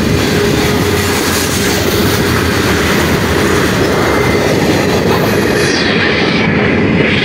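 Freight train cars rolling steadily past close by: a continuous rumble and clatter of steel wheels on rail. A faint steady tone runs through the first few seconds.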